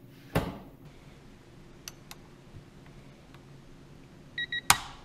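Click-type torque wrench breaking over with a single sharp click about half a second in, as it reaches its 70 ft-lb setting while tightening through a 2-inch extension into a digital torque adapter. Near the end the digital torque adapter gives two short electronic beeps, followed by another sharp wrench click.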